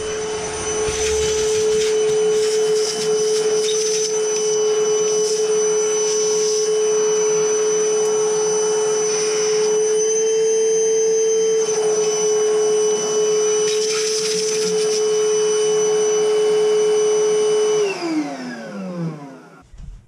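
Vacuum cleaner motor running with a steady whine, its pitch lifting slightly about halfway through, then switched off near the end and winding down with a falling pitch.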